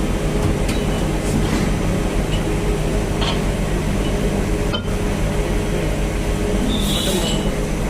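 CNC turret lathe running after cycle start: a steady machine hum with a few faint ticks, and a short high-pitched burst about seven seconds in.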